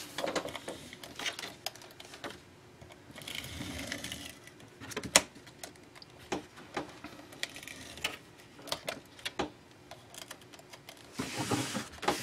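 Stampin' Up Fast Fuse adhesive applicator run along the edges of a paper flap, with paper being handled and pressed down: scattered light clicks and taps and two short stretches of rubbing, about three seconds in and near the end.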